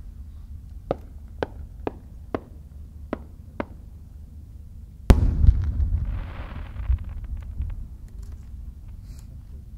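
Aerial fireworks: a quick series of six sharp pops as small shells burst, then about five seconds in a single heavy boom of a larger shell bursting, followed by a rolling rumble that fades over a couple of seconds.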